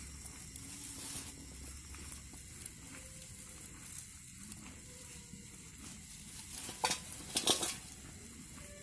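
Lambs chewing and tugging at dry sorghum stalks: a steady crackling and rustling of dry fodder, with a louder burst of rustling near the end.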